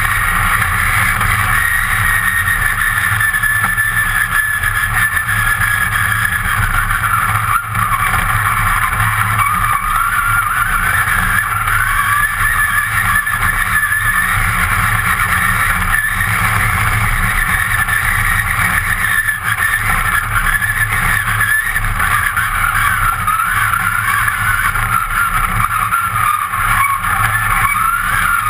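Rally car engine running hard, heard from inside the stripped, caged cabin, its revs rising and falling continuously as it is driven along a dirt stage.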